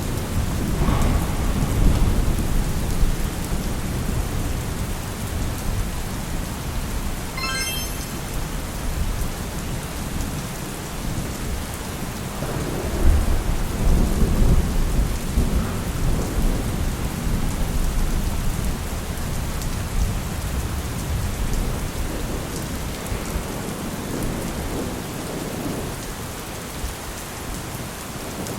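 Steady rain with rolling thunder, the rumbles swelling about a second in and again, louder, around thirteen seconds in.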